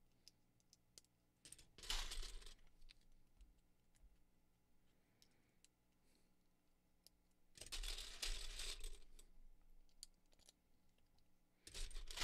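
Loose white plastic Lego bricks and hinge pieces clattering and clicking as they are handled in a pile, in three bursts: about two seconds in, around eight seconds, and near the end, with scattered light clicks between.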